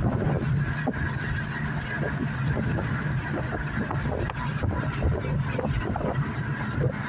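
Steady engine and road noise of a car being driven.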